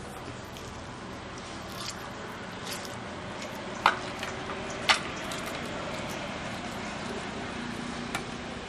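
Steady low background hiss, broken by a few sharp taps; the two loudest come about a second apart near the middle.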